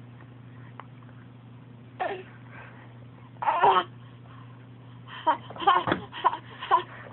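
Short vocal noises: one brief call about two seconds in, a louder one in the middle, then a quick run of five or six near the end.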